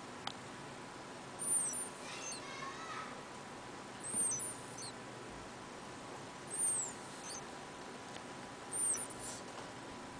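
Cat snoring in its sleep, with a high, squeaky whistle on each breath, four times at about two-and-a-half-second intervals.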